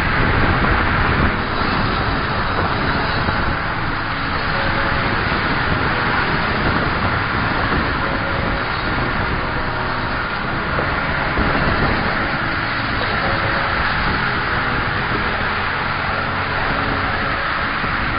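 Steady outdoor background hiss with no distinct events.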